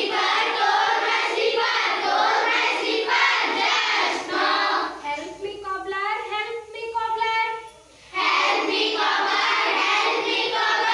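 A group of children singing a rhyme together in unison, with a short break about eight seconds in.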